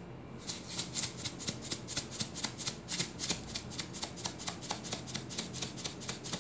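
Salt shaker shaken quickly over a bowl of ground spices, salt rattling inside and pouring out in a fast, even run of gritty rattles about four or five a second, starting about half a second in.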